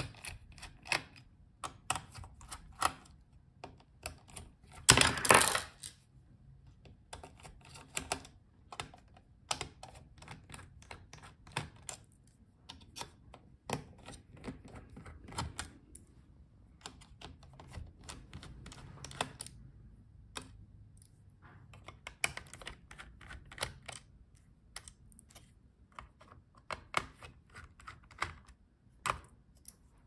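Scattered small clicks and taps of a precision screwdriver backing out the screws of a laptop's heatsink and cooling-fan assembly, with a louder clatter about five seconds in.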